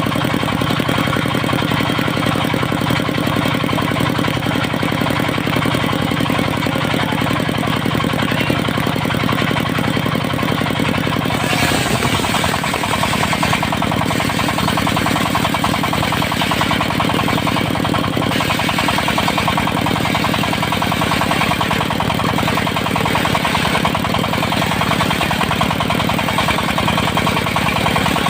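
Portable circular sawmill's engine running steadily. About twelve seconds in the sound shifts, its low hum changing and a louder hiss coming in above it.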